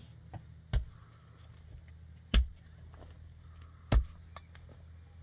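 Three heavy strikes at an even pace, about one every second and a half, over a low steady hum.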